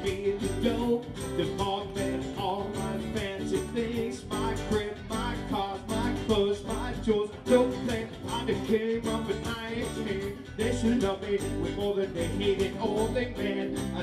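Live bar band playing an upbeat number on electric and acoustic guitars with a steady beat.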